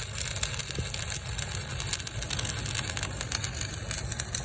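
Arc welding on a 16-inch pipe flange: a steady, dense crackle of the arc over the low, even run of an engine.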